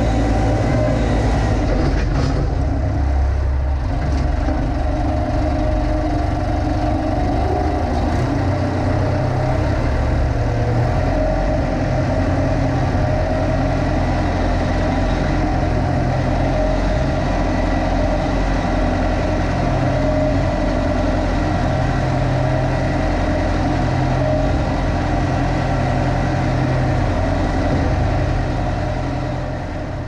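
Perkins diesel engine of a Massey Ferguson MF50E backhoe running steadily as the machine works its way along a gravel driveway, heard from the operator's seat.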